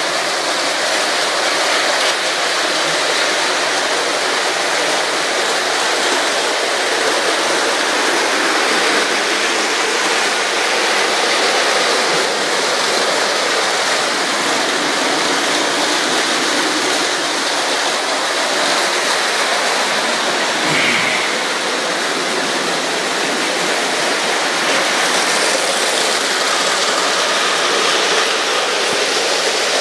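Several motorised Lego trains running at once on plastic track: a steady, even whir of their small motors and wheels.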